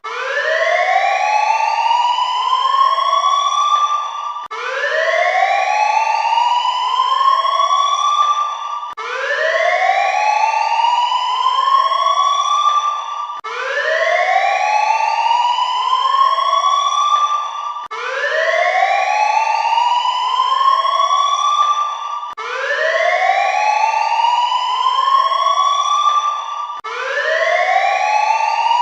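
Warning siren sounding in repeated rising whoops, a loud whoop followed by fainter ones, the pattern repeating about every four and a half seconds.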